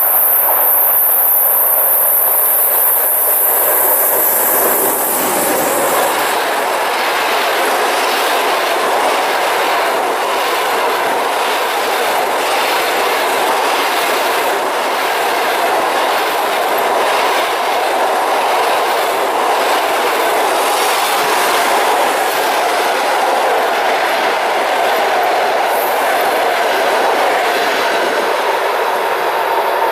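Passenger train hauled by an EP20 electric locomotive passing close by at speed, its carriage wheels clicking rhythmically over the rail joints. There is a loud high hiss in the first few seconds.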